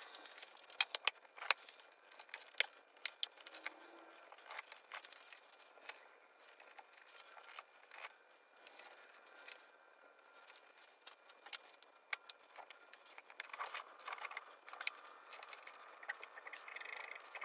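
Irregular light clicks, ticks and rattles of hands working the X-Carve's plastic cable drag chain and its cables, with a little scraping, busiest in the first few seconds and again near the end.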